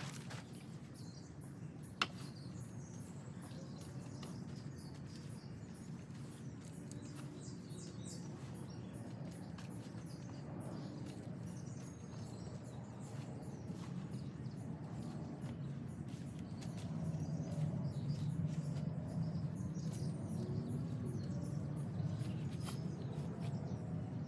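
Outdoor ambience: a steady low hum with faint bird chirps, and a single sharp click about two seconds in.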